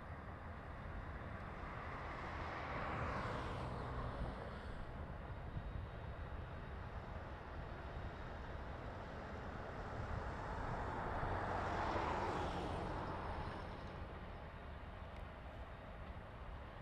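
Heritage diesel-electric locomotives hauling a passenger train, their engines rumbling steadily at a distance, with two louder swells of noise, about three and twelve seconds in, that rise and fade over a couple of seconds each.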